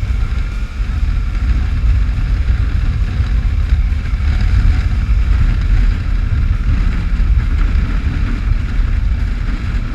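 Wind buffeting the microphone at riding speed on a Suzuki V-Strom 650 motorcycle, a loud, rough, low rush with the bike running underneath.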